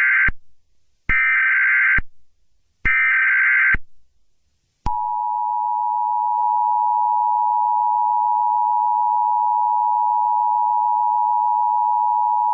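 Emergency Alert System (EAS) tones. First comes the SAME header: the tail of one warbling data burst, then two more, each about a second long. About a second later the steady two-tone EAS attention signal begins and holds.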